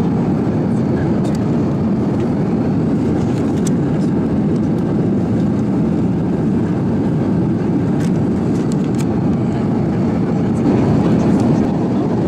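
Steady low rumble of engine and airflow noise inside the cabin of an Airbus A350-900 in flight.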